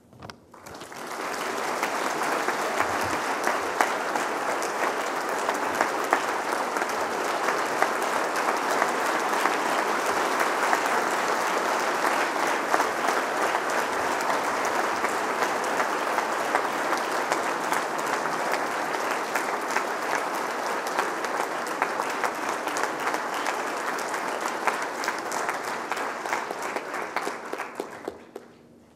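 Large seated audience applauding, a dense steady clatter of many hands clapping that swells within the first second and dies away near the end.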